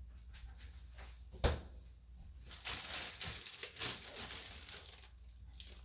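A sharp knock about a second and a half in, then a plastic zip-top bag crinkling and rustling as it is handled.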